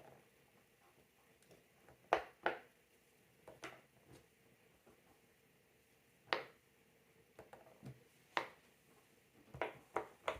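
Silicone pop-it bubbles being pressed through one at a time, giving about nine short, soft pops at irregular intervals, some in quick pairs.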